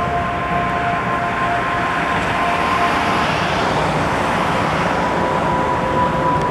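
Steady rushing noise like passing road traffic, with two faint held tones that fade out partway through.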